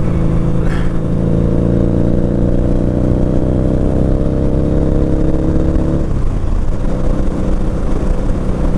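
Motorcycle engine pulling under throttle, its pitch rising slowly, then dropping abruptly about six seconds in as the throttle eases or the gear changes, and running on lower.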